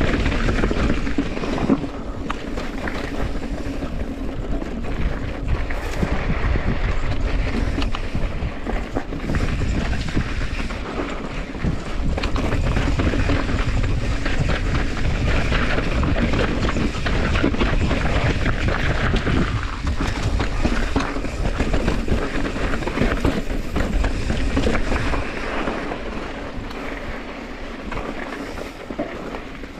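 Mountain bike riding over rocky trail: tyres crunching on rock and gravel with the bike rattling and clattering over the bumps, and wind rumbling on the microphone.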